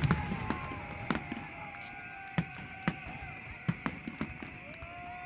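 Aerial fireworks bursting, with separate bangs and pops at irregular intervals about once a second, the first and loudest right at the start. Underneath runs a steady hiss and some drawn-out wavering tones.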